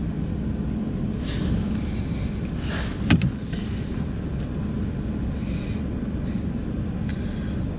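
Steady low rumble of a vehicle driving, heard from inside the cab, with one sharp click about three seconds in.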